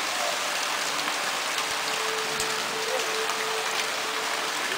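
Heavy rain falling steadily on the leaves and grass of a garden, an even hiss of downpour.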